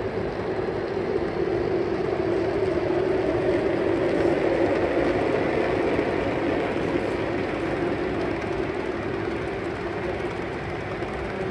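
O gauge model train running past on the layout, a steady rumble of wheels and motor that swells about four seconds in and then slowly fades.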